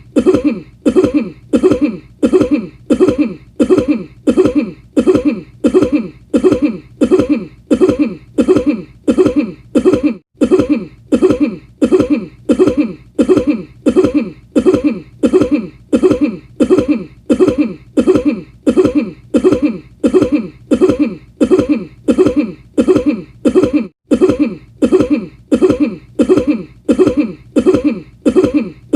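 A man's cough repeated over and over in a loop, about two identical coughs a second at an even pace.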